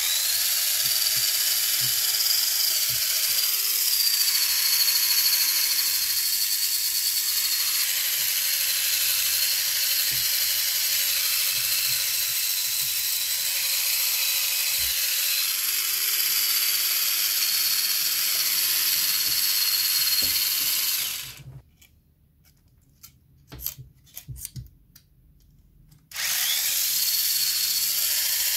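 Tamiya Mini 4WD Winning Bird's small electric motor and drive gears running with a steady high whine, pitch wavering slightly now and then. It is switched off about 21 seconds in, a few clicks follow, and it starts up again about five seconds later.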